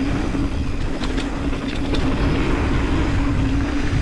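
Mountain bike descending a dirt trail: tyres rumbling over the ground and wind on the microphone, with a steady hum running throughout and a few brief rattles about a second in.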